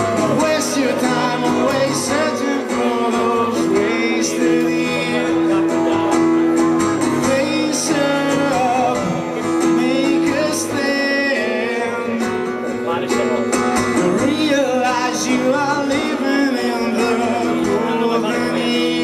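Live acoustic guitar music: an instrumental break played between the sung verses of a song.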